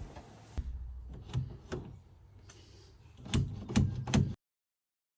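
A door fitted with a smart lock being worked: a string of knocks and latch clicks, the three loudest close together near the end, then the sound cuts off.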